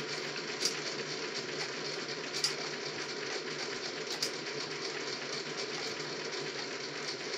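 Steady background hiss of the room, with three faint light taps in the first half as a small wooden reglet block and a rag work over a Linotype's steel vise jaws, polishing them.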